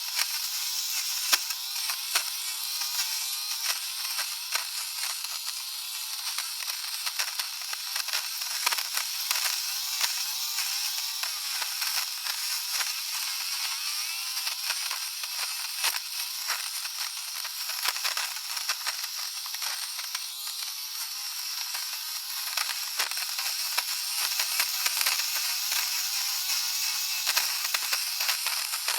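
Electric fabric shaver (lint remover) running over fabric: a steady high whir with frequent small crackling clicks.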